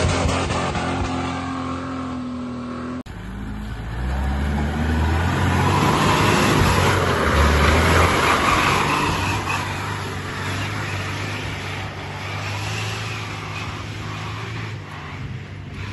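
Off-road 4x4 engines working in deep mud. A Land Rover Discovery's engine runs steadily for the first few seconds. After a cut, a Nissan Patrol revs hard as it churns through the mud, loudest a few seconds later, then fades as it pulls away.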